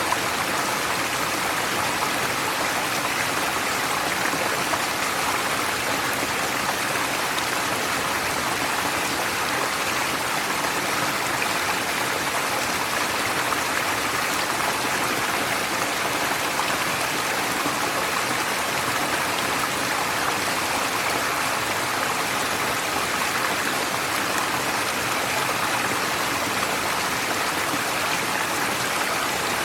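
Forest stream flowing, a steady, even rush of water with no change in level.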